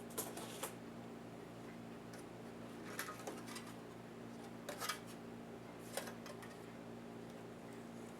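Scattered light clicks and taps of small laptop parts and tools being handled during disassembly, a few at a time with pauses between, over a steady low hum.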